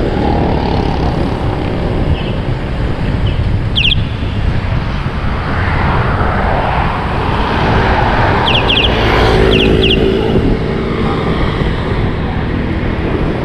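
Wind buffeting the microphone of a bicycle coasting fast downhill, a loud steady rush mixed with passing road traffic. There are a few short high squeaks about four seconds in and again around nine seconds in.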